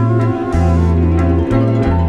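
Instrumental hip-hop track: a plucked-string melody over deep bass notes that change every half second or so, with light percussive hits.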